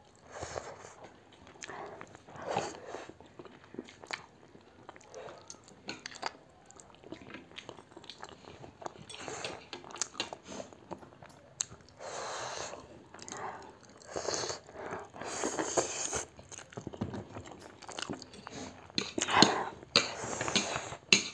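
Close-up eating sounds of spicy instant noodles: irregular slurping, chewing and biting, with short clicks of chopsticks against the plates.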